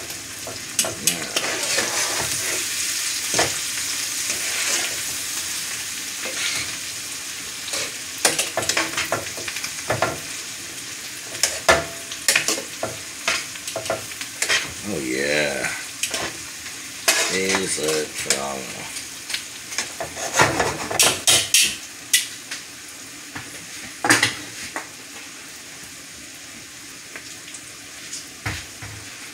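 Ribeye steak and mushrooms frying in butter in a pan: a steady sizzle that grows fainter in the second half. Scattered sharp clicks and knocks of handling run through it, with a couple of short wavering squeaky sounds in the middle.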